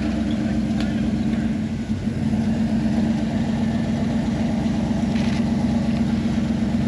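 Rock buggy engine running at low, steady revs as the buggy crawls slowly up a steep boulder.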